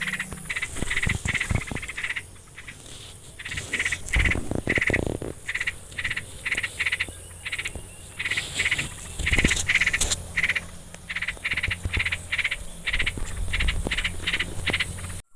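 Rapid, evenly repeated animal calls, about three a second, over a steady high-pitched insect drone, with a few low knocks about four to five seconds in.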